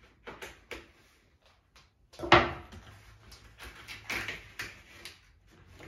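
Utility knife cutting through the cardboard side of a box: short scraping strokes, with one loud sharp crack about two seconds in.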